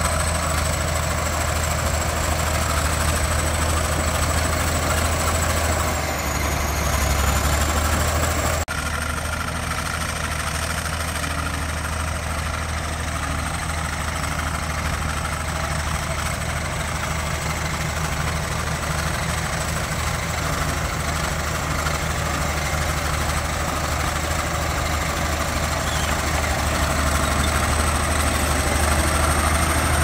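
Shantui SD22 crawler bulldozer's diesel engine running steadily while it pushes dirt: a deep, even drone with a thin high whine over it. About a third of the way in the sound breaks off abruptly and picks up again a little quieter.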